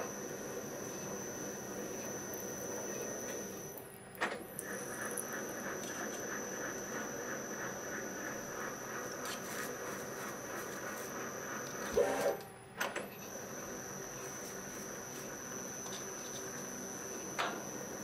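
CNC mill spindle driving a spiral-flute tap into metal during rigid tapping: a steady high motor whine with a rattling cutting noise. The whine cuts out briefly about four seconds in and again around twelve seconds, with a knock, as the spindle stops to reverse the tap, and there is another short knock near the end.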